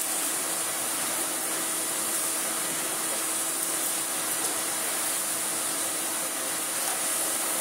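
Miele S228i canister vacuum cleaner running steadily at one constant pitch with an airy hiss, its floor head being pushed over a rug.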